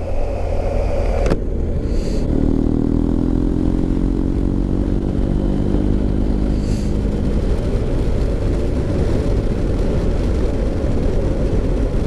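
BMW R1250 GS Adventure's boxer-twin engine running under way through a Remus Hawk slip-on silencer, with steady low wind rumble. There is one sharp knock a little over a second in. From about two seconds in, the engine note stands out more clearly for several seconds, then sinks back under the rumble.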